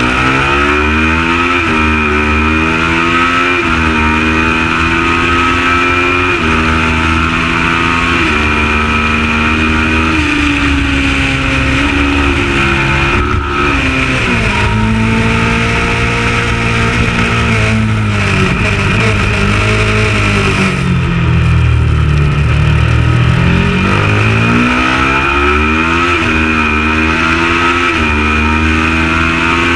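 Kawasaki ER650 parallel-twin race bike engine at racing speed, revving up and shifting up through the gears several times. About two-thirds of the way through, the revs fall away under braking for a slow corner, then climb again through further upshifts. A steady rush of wind noise runs underneath.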